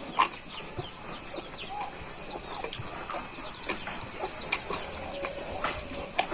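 Small birds chirping in many short falling notes, with scattered sharp clicks.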